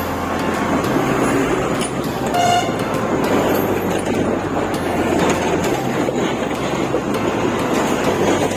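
A 110 cc motorcycle riding in traffic: steady engine and wind noise, with one short vehicle horn toot about two and a half seconds in.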